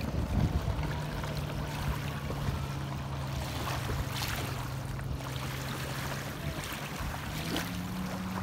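Distant motorboat engine running with a steady low hum, its pitch stepping up near the end, over water lapping and wind.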